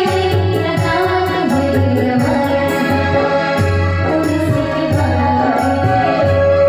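Music with singing over a steady drum beat, played loud.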